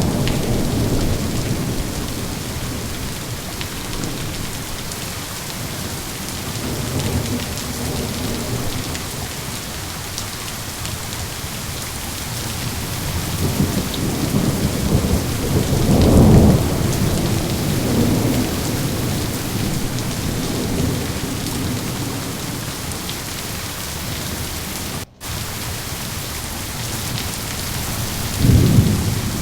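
Steady rain hissing, with thunder rumbling low several times; the loudest roll comes about halfway through and another starts near the end. The sound drops out for an instant about three-quarters of the way through.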